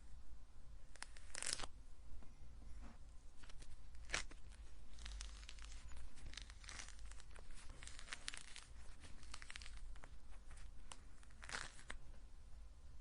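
An orange being peeled by hand: the rind tears away in short, irregular rips and crackles, with three louder rips about a second and a half, four seconds and eleven and a half seconds in. A faint low hum sits underneath.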